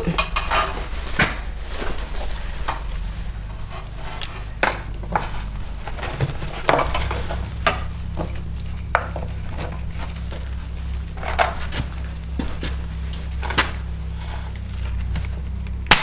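Stanley electric stapler firing staples into a wood slice, a sharp snap with each shot, a dozen or so spaced irregularly about a second apart.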